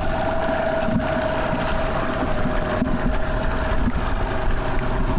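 Catamaran's engine running steadily with a constant hum, with wind buffeting the microphone.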